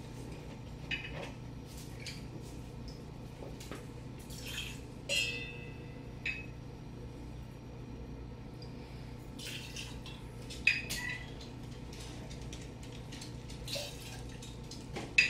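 Vodka poured from a bottle into a jigger and a cocktail shaker: a faint trickle of liquid with occasional clinks of glass and metal. One clink about five seconds in rings briefly.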